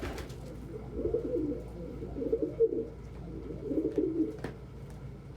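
Domestic pigeon cooing in three low, warbling bursts over about three seconds, with a couple of faint clicks.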